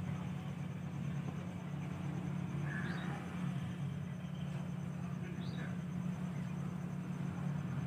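Steady low motor-like hum with a few faint, short high chirps about three and five and a half seconds in.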